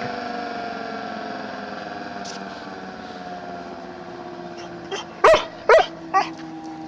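Old Federal Signal 2T22 dual-tone tornado siren winding down, its tones slowly falling in pitch and fading. A dog barks about four times near the end.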